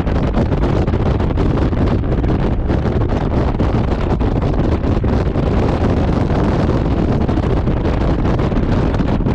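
Steady wind rush buffeting the microphone, over the low road rumble of a Honda Gold Wing touring motorcycle cruising at motorway speed.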